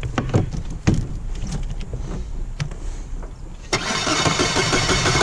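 Small outboard motor idling, with quick clicks and squeaks from the rubber fuel-line primer bulb being squeezed. About three and a half seconds in, the throttle opens and the motor suddenly runs much louder, with a rushing noise over it.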